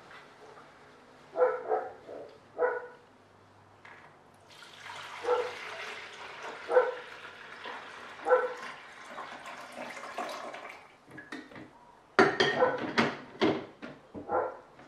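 A dog barks in short single barks, about one every second and a half. Over these barks water is poured for several seconds from a glass carafe into a drip coffee maker's reservoir. Near the end comes a quick run of louder barks.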